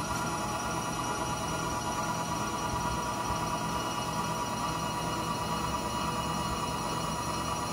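Servo 150 power feed motor driving a Bridgeport Series 1 mill table along the X-axis at constant speed: a steady whine with a low hum underneath.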